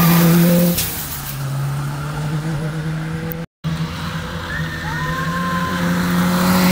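Rally car engines on a tarmac special stage. One car is loud as it goes past and then fades away. After a short break in the sound, a second rally car's engine grows louder as it comes through the bend.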